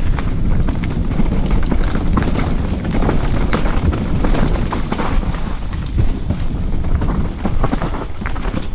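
Wind noise on an action camera's microphone and mountain bike tyres rumbling over rough trail at speed, with frequent knocks and rattles from the bike over the bumps.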